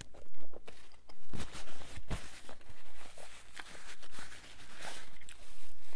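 Close-up chewing of a mouthful of Whopper burger: a run of soft, irregular clicks and rustles. A paper napkin rustles as the hands are wiped.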